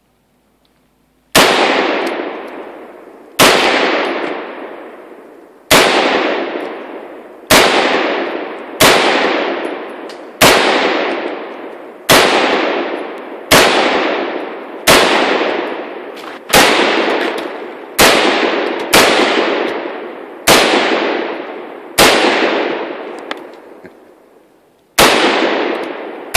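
AR-15-style rifle fired in slow semi-automatic single shots, about sixteen, one every one to two and a half seconds. Each sharp report trails off in a long echo lasting over a second. The firing starts about a second and a half in.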